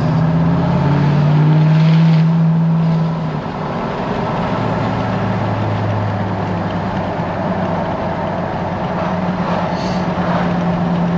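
A GM L5P Duramax 6.6-litre V8 turbodiesel pickup driving at highway speed, heard from inside the cab: a steady engine hum with road noise. It is somewhat louder for the first three seconds or so as the truck pulls, then settles. The engine sounds pretty good and fairly quiet on fresh oil with a new oversized filter.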